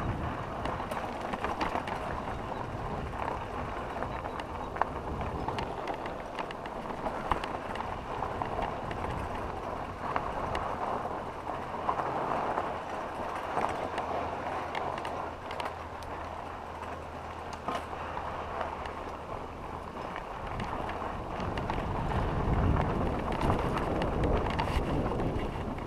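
Mountain bike rolling over a loose, stony dirt trail: continuous tyre crunch with the bike's rattles and scattered sharp clicks, plus wind on the microphone, getting louder near the end.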